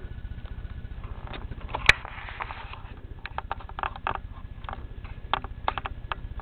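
A cat's paws and claws tapping and scratching as she plays on the carpet close to the camera: scattered short clicks and taps, with one sharper click about two seconds in.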